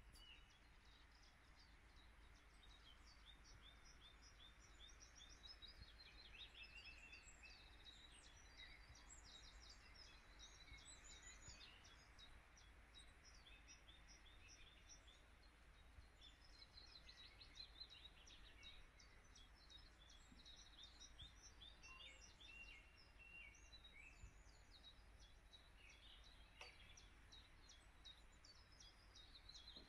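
Faint dawn chorus: several songbirds chirping and singing over one another throughout, over a steady background hiss.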